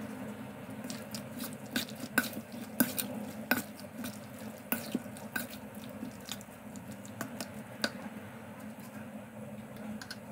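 Metal spoon stirring raw chicken pieces with egg and spices in a stainless steel bowl: irregular clinks and scrapes of the spoon against the bowl. They thin out after about eight seconds.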